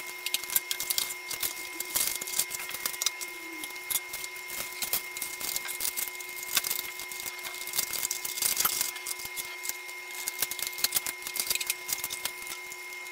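Cardboard box and clear plastic packaging tray being handled during unboxing, with scissors cutting the box open: dense, irregular crinkling, crackling and tapping. A faint steady hum runs underneath.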